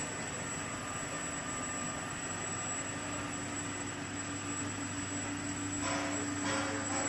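Steam boiler and automatic mawa kettle machinery running: a steady motor hum with an even hiss, holding one low tone throughout.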